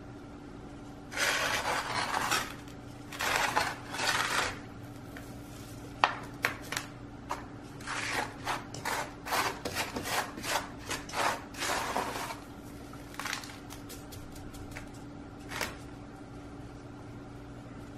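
Coarse bark potting mix being handled and pushed into a terracotta pot: gritty scraping and rubbing in two longer bursts, then a quick run of short scrapes and clicks, thinning out near the end.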